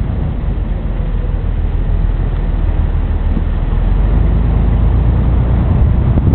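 A car pulling away from a stop and driving on, heard from inside the cabin: a steady low engine and road rumble that grows slightly louder.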